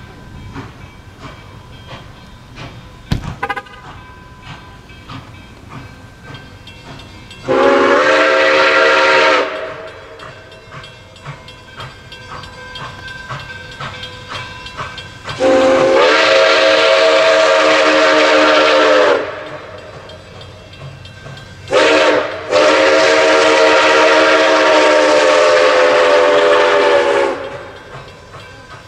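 Nickel Plate Road 765's steam whistle sounding a chord of several tones in the grade-crossing pattern: two long blasts, a short one and a final long blast. A low rumble and hiss from the approaching 2-8-4 Berkshire steam locomotive runs underneath.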